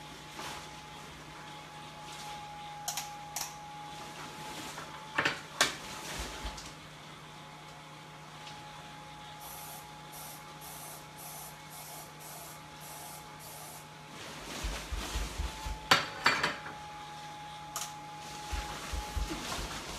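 Non-stick cooking spray hissing from an aerosol can in a series of short squirts, with a few knocks, over the steady hum of the inflatable costume's blower fan.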